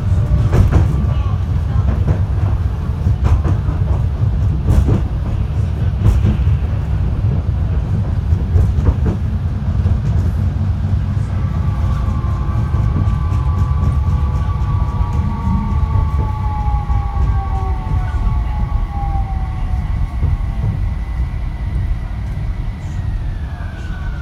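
Fukui Railway F1000 low-floor tram running, with a heavy low rumble and clicks from the rails. About halfway through, an electric whine from the drive comes in and falls in pitch as the tram slows for a station stop.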